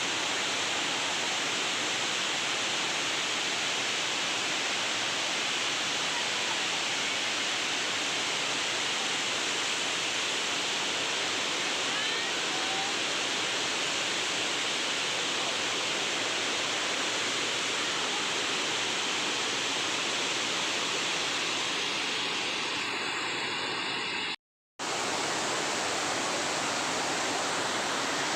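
Steady, loud rushing of a waterfall, with the sound cutting out to silence for a moment about 24 seconds in before the rush returns.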